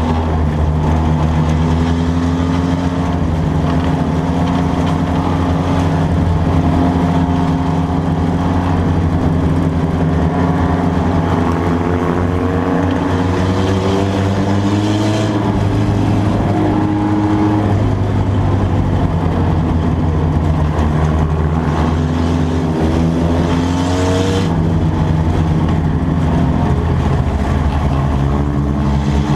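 Mini stock race car's engine heard from inside the cockpit, running steadily, then revving up twice, about halfway and again near the end. Each time the pitch climbs for a few seconds with a rush of wind and road noise, then drops off suddenly as the throttle is lifted.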